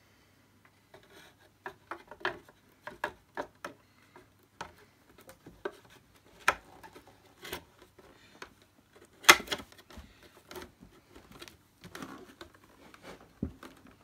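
Plastic parts of an Electrolux 502 upright vacuum cleaner clicking and knocking as the motor cover and hose are pressed back into its body: irregular sharp taps, the loudest knock about nine seconds in.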